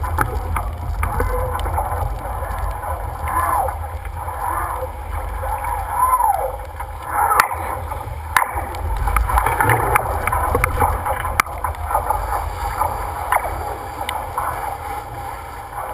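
Sailing yacht under way: water rushing and gurgling along the hull and wind buffeting the microphone in a steady low rumble, with a few sharp knocks.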